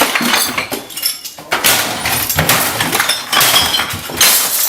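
Glass and hard plastic pieces clinking and clattering in a quick, irregular series of small knocks, with short glassy rings.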